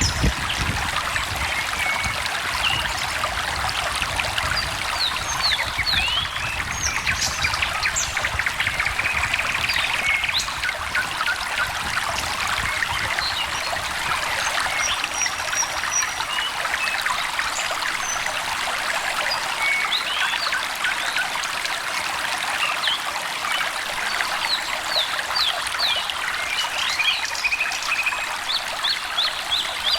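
Small stream trickling and babbling steadily, with songbirds chirping over it: quick runs of short chirps and brief trills, thickest about a third of the way in and again near the end.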